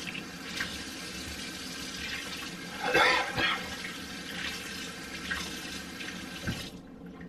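Kitchen tap running water into a sink in a steady rush, with a brief louder moment about three seconds in, then turned off abruptly near the end.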